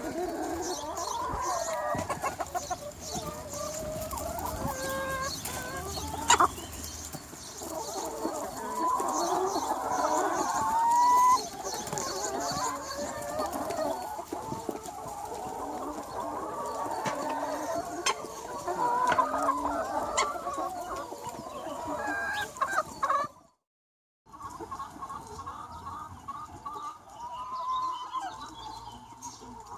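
A large flock of free-range chickens clucking and calling over one another without a break. About 23 seconds in, the sound cuts out completely for under a second, then the clucking resumes.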